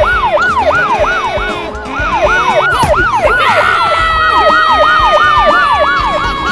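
Police siren in a fast repeating pattern, about three sweeps a second, each sliding down in pitch, with a brief break just under two seconds in. From about halfway a second, steadier siren tone slides slowly downward under it.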